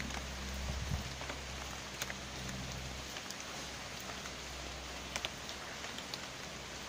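Steady rain falling on standing floodwater: an even hiss dotted with scattered louder drops. A low hum underneath stops about three seconds in.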